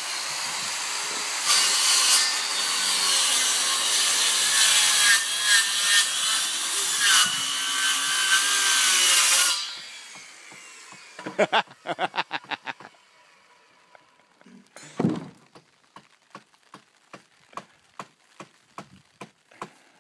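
Handheld circular saw cutting through a thick old timber beam, running for about nine seconds before stopping. Then comes a quick run of sharp strokes, one heavier knock, and short strokes about twice a second near the end as the cut is finished with a hand saw.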